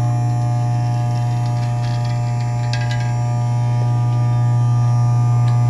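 Vibratory feeder bowl running with a steady low electric hum as it feeds caps along its track; a few faint light clicks about halfway through.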